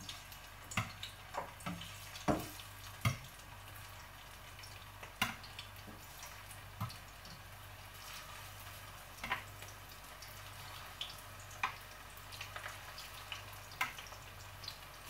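Beef pieces sizzling faintly as they brown in a hot frying pan, with scattered sharp clicks of metal tongs against the pan and the glass bowl as pieces are laid in one at a time. A faint steady low hum runs underneath.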